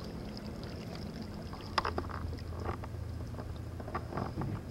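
Canoe paddling: a paddle dipping and dripping water, with a few short splashes and sharp knocks, the loudest about two seconds in, over a steady low hum.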